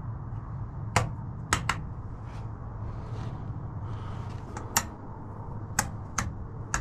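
About seven sharp clicks and taps, irregularly spaced, two of them close together, over a steady low hum: hands working small switches and metal fittings.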